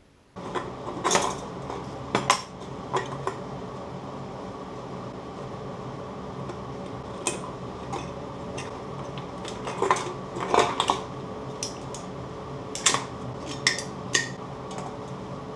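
Empty aluminium drink cans and small metal fixtures clinking and knocking as they are handled and clamped on a metal table: about a dozen scattered short knocks over a steady hum.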